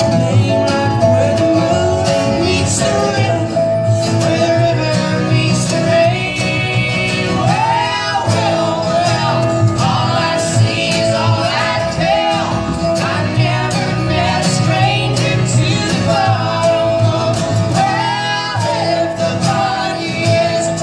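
An acoustic folk string band playing an instrumental break: guitar keeps the rhythm under a melody line of long held notes with slides and bends.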